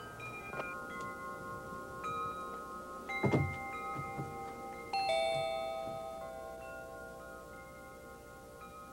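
Wind chimes ringing, with clear tones starting one after another and fading slowly. There is a short thud about three seconds in, and a louder, lower chime about five seconds in.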